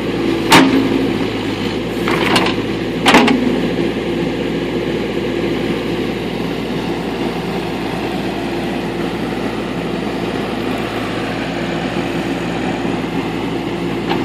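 Backhoe engine running steadily while digging out a tree stump, with three sharp knocks in the first few seconds.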